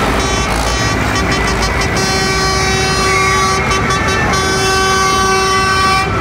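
Tractor engines running as they drive past, and about two seconds in a vehicle horn sounds and is held on one steady pitch for about four seconds.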